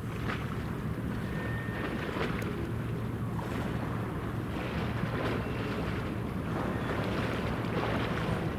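Police patrol boat's engine running with a steady low hum, under the rush of wind on the microphone and water.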